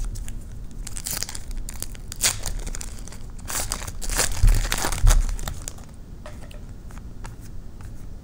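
A trading-card pack's wrapper being torn open and crinkled, with a couple of dull handling bumps about four and five seconds in.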